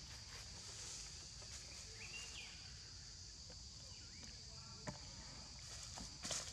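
Steady high-pitched insect drone, with a short rising chirp about two seconds in and a few light crackles of dry leaves near the end.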